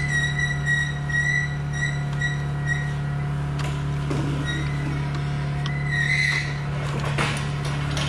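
A steady low machine hum, with a faint high squeak or chirp repeating about two to three times a second through the first few seconds and again briefly about five seconds in.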